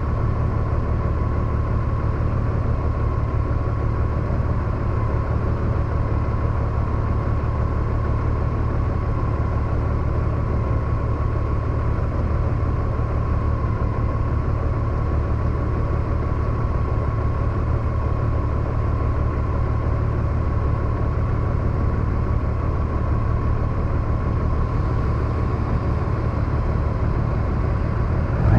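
Honda Gold Wing DCT's flat-six engine idling steadily while the motorcycle stands still, a constant low hum with a faint steady whine above it.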